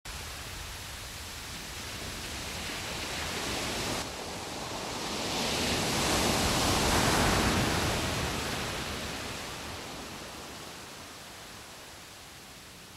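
Rushing sound of ocean surf that swells to a peak about seven seconds in, then slowly fades, with a sudden small drop in the noise about four seconds in.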